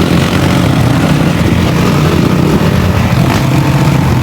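Dirt bike engine running steadily under way.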